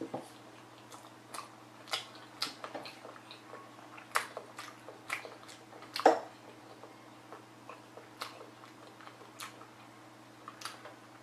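Close-up chewing of a mouthful of rice in black bean sauce: wet smacks and clicks at irregular intervals, the loudest a little after six seconds in. A faint steady hum runs underneath.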